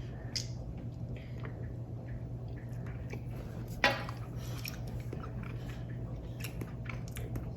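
Faint mouth and cup sounds of someone sipping and tasting a liquid: small clicks, and one sharper click or smack just under four seconds in, over a low steady hum.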